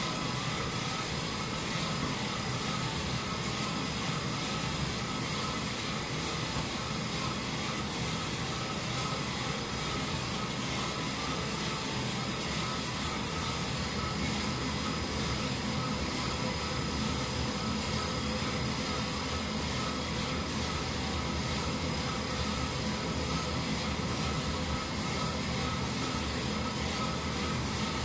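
Commercial drum coffee roaster running steadily early in a roast, its drum, burner and exhaust fan giving a constant hum with a few faint steady tones.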